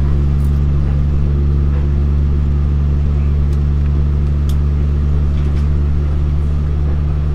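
Cabin sound of a UP Express Nippon Sharyo diesel multiple unit running at speed: a steady low drone from its diesel engine over wheel-on-rail noise, with a few faint ticks.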